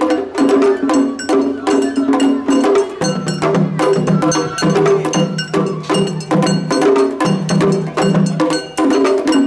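Japanese festival hayashi music: rapid, dense drum and metal gong strikes over a held melody line that moves to a lower note about three seconds in.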